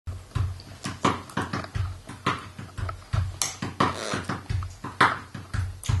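Irregular clicks and knocks, a few a second, of breakfast being eaten from a bowl of cereal shared with a parrot.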